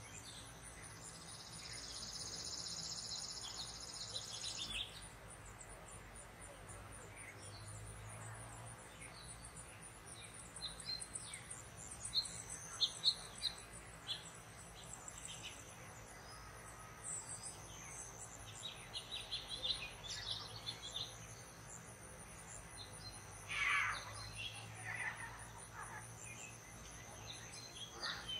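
Evening garden ambience: a steady high-pitched insect trill runs throughout, with a stretch of louder buzzing over the first few seconds. Scattered short bird chirps come in from about a third of the way through, and a few louder falling bird calls come near the end.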